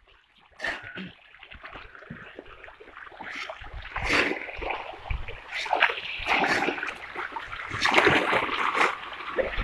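Pond fish splashing and churning at the surface in a feeding rush as pelleted feed is scattered onto the water, mixed with the scrape and rattle of feed pellets being scooped with a plate in a wooden boat. The splashing surges about four seconds in and again near the end.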